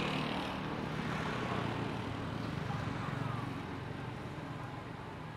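A motor engine droning steadily, louder in the first few seconds and slowly fading.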